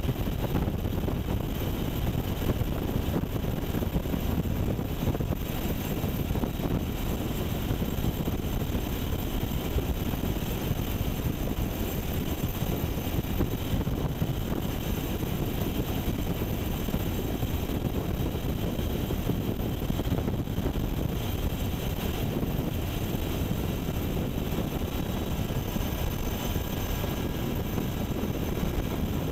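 Steady drone of a UH-60 Black Hawk helicopter's rotor and twin turbine engines in flight, heard from inside the cabin, unchanging in level throughout.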